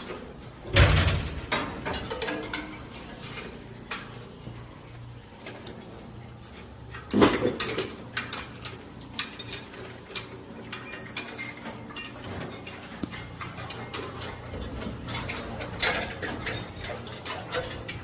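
Metal tools clinking, clicking and knocking on engine parts during repair work, with two louder metallic knocks about a second in and about seven seconds in. A steady low hum runs underneath.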